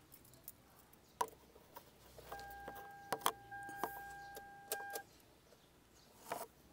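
A steady electronic beep tone lasting about two and a half seconds, with a short break partway, among light clicks and rattles of handling.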